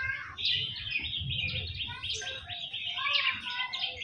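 Several birds chirping and twittering rapidly, their quick calls overlapping into a busy chorus.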